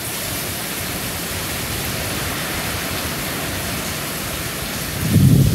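Hurricane rain falling hard in strong wind, an even steady hiss, with a louder low gust buffeting the microphone about five seconds in.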